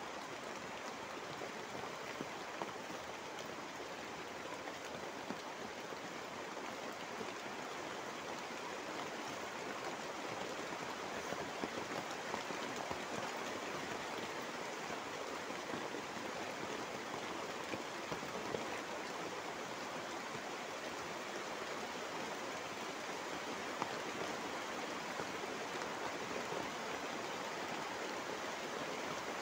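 Heavy rain falling steadily, heard from under a tarpaulin shelter: an even hiss with scattered sharper drop taps.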